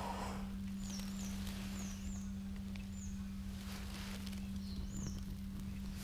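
A small bird calling, short high chirps that dip and rise in pitch, about a dozen of them, some in quick pairs. Underneath is a steady low hum, and there are a few faint rustles as the burning tinder bundle is handled.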